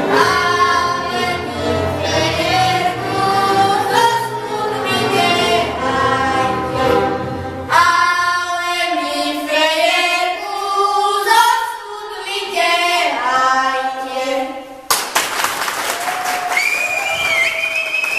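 A young girl singing a folk song with a children's string band of violins, accordion and double bass. About eight seconds in the low accompaniment drops out and the voice carries on nearly alone, and about fifteen seconds in the song ends and applause starts abruptly.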